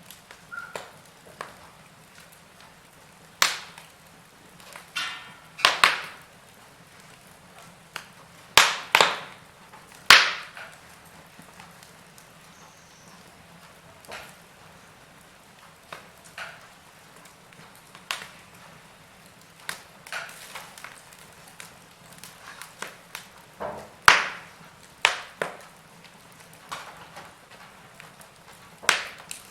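Burning logs crackling in a fireplace: sharp, irregular pops and snaps a second or more apart, some loud, over a faint steady hiss.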